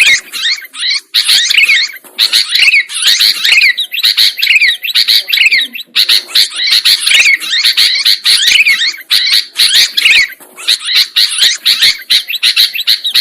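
Sooty-headed bulbul (kutilang) singing continuously in rapid chattering phrases, with quick downward-sweeping notes and a few brief pauses.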